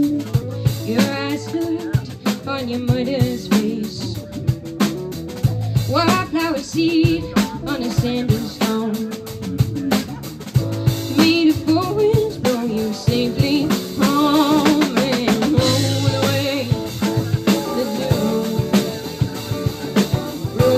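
Live psychedelic jazz band playing: drum kit, electric guitars and saxophone, with a wavering lead melody over the beat.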